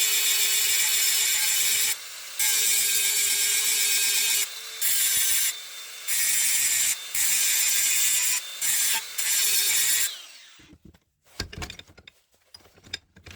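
Power grinder working the steel rebar tip of a center punch in long loud stretches, broken by brief lighter moments. About ten seconds in it stops and winds down, followed by a few scattered knocks.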